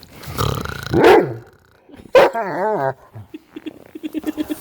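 Dog barking and grumbling: a loud bark about a second in, a wavering, warbling call a little after two seconds, and a low, rapid rattling growl near the end.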